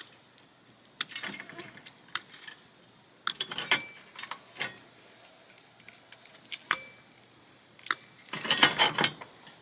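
Metal parts and hand tools clinking and clattering as an oscilloscope is taken apart for scrap. Scattered single clicks, then a busier run of clatter about eight seconds in.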